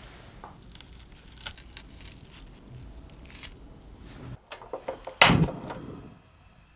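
Faint crackling and rustling of panko breadcrumbs as breaded potato sticks are set down on a baking tray. After about four seconds come a few clicks and one loud sudden clatter, the loudest sound, fading within a second, from a pan and gas stove.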